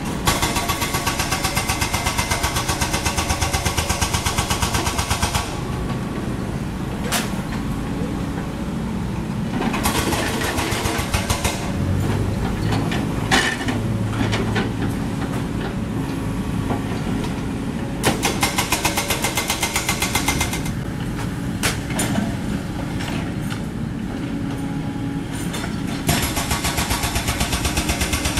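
Mini excavator's diesel engine running steadily while working. Four times it is overlaid by a fast, even rattling clatter lasting a few seconds.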